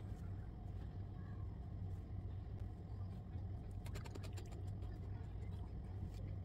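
A steady low hum, with a sharp knock at the very start as a knife finishes a cut through cucumber onto a wooden cutting board, and a quick run of small clicks about four seconds in.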